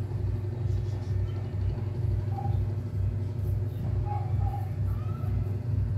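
Hair-dryer blower running steadily, pushing air through a pipe into a waste-oil burner stove: a low rumble that pulses about two to three times a second.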